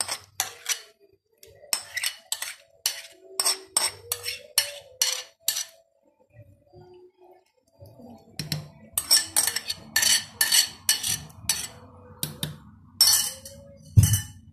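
A utensil clinks and scrapes against a plate and a metal cooking pot again and again as the plate's contents are knocked into a pot of sauce. There is a quieter pause of about two seconds midway, then more rapid clinking and a heavy knock near the end.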